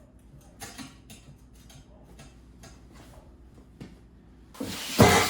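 Floor jack being pumped under a car, its handle strokes giving small irregular clicks about three or four times a second, then a louder noisy burst near the end.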